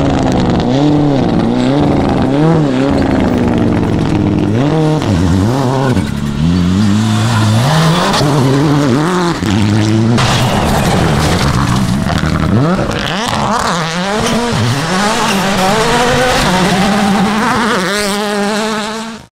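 Rally cars driven flat out on a gravel stage, engine pitch climbing and dropping again and again through quick gear changes and throttle lifts, with gravel and dirt spraying from the tyres. Several cars pass in turn, with sudden changes between them.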